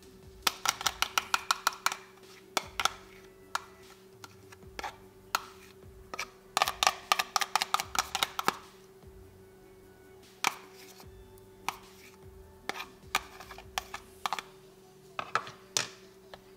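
Metal spoon tapping and scraping against a plastic container and a glass bowl while scooping pumpkin puree: two runs of quick clicks, about eight a second, with scattered single taps between and after. A faint steady hum sits underneath.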